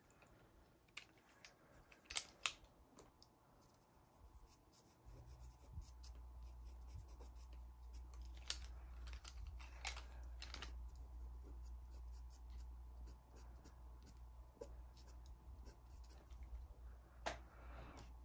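Faint scattered clicks and taps of pastel pencils being handled and set down on a desk, with a low steady hum that starts about five seconds in.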